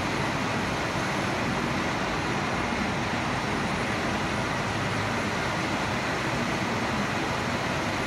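Diesel engine of a truck-mounted concrete pump running steadily while the pump is set up, heard as an even noise that does not change.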